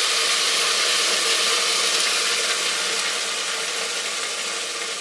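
Water running and splashing, a steady hiss that slowly fades over the last couple of seconds.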